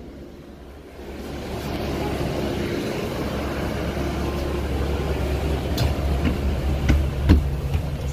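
Cabin noise inside a London double-decker bus: the engine's steady low rumble, growing louder about a second in, with a few sharp clicks and knocks near the end.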